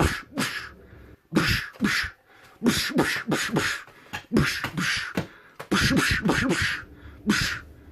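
Sound effects made with a person's mouth: an irregular string of short hissing, spitting bursts with some grunting, standing in for a fight.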